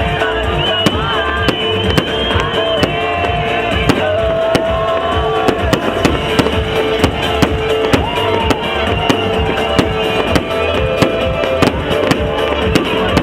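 Fireworks display: many sharp bangs and crackles in quick, irregular succession, over music with held and gliding tones.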